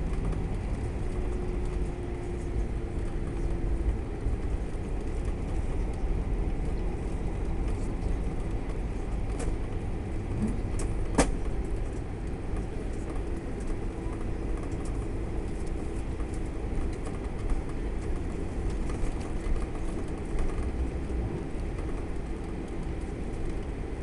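Cabin noise of an airliner rolling out on the runway just after touchdown, with its ground spoilers raised: a steady low rumble with a faint steady engine tone. There is one sharp click about halfway through.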